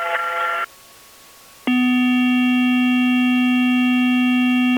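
Electronic tones of a mock emergency-alert broadcast: a synthesized chord cuts off shortly in, and after about a second's pause a steady, low electronic buzzer tone with overtones sounds for about three seconds and stops abruptly.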